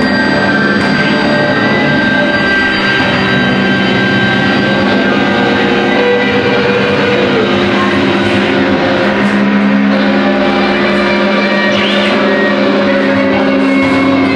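Several guitars played together in a free, noise-based improvisation: a loud, dense wash of sustained droning tones with a few wavering, sliding pitches.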